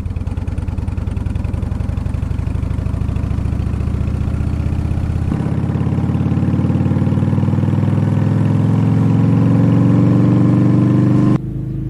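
Harley-Davidson Night Train motorcycle's V-twin engine running and slowly gaining revs, its pitch rising. The tone and loudness change abruptly about five seconds in and again near the end, as playback switches between synced onboard and exterior microphone takes of the same run.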